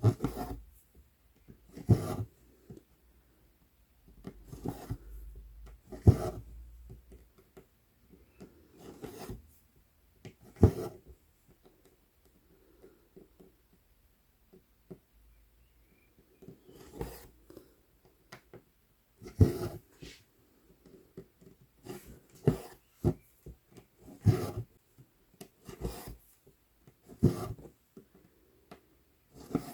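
Embroidery needle popping through stiff Aida cloth and floss rasping as it is drawn through, in short strokes that come irregularly a second or two apart. There is a quieter gap partway through.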